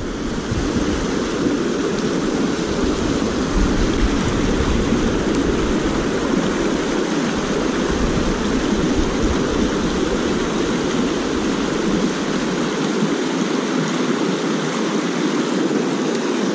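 Shallow creek water rushing over rocks in a riffle: a steady rush with no break.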